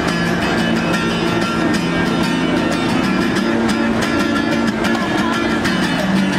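Music with guitar, held low notes and a regular beat.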